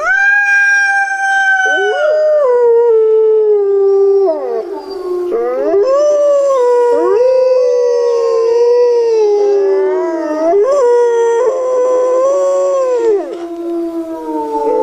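Wolves howling in chorus. A long, steady howl starts suddenly, then several howls at different pitches overlap, rising and falling, over one lower held note.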